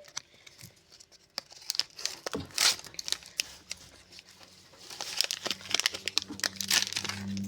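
Crinkling and tearing of a foil football-card pack wrapper being handled, in irregular crackles that are sparse at first and thicken from about five seconds in.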